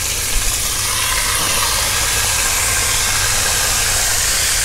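Redfish frying in hot oil: a loud, steady sizzle, rising slightly in the first second and then holding, over a steady low rumble.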